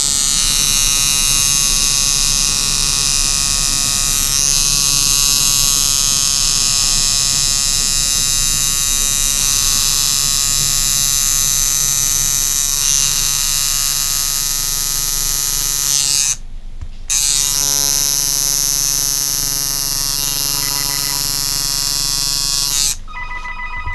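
Electric coil tattoo machine buzzing steadily as its needle outlines a tattoo on skin. It stops briefly about two-thirds of the way through, starts again, and cuts off shortly before the end.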